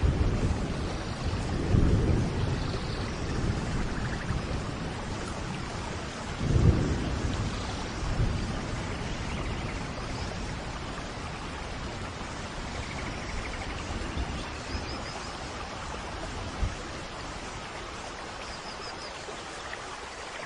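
Steady rain ambience with rolling thunder: low rumbles swell about two seconds in and again at six to seven seconds, then the rain runs on more evenly.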